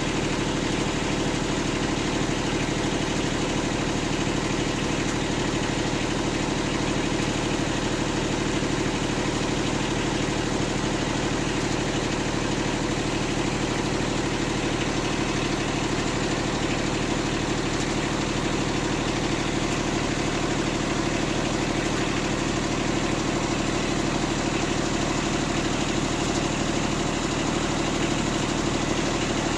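Small boat's motor running steadily at low speed, an unchanging drone.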